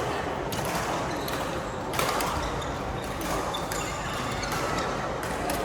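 Badminton play: short sharp knocks of rackets striking the shuttlecock, along with footfalls, at irregular intervals over a steady hall hubbub.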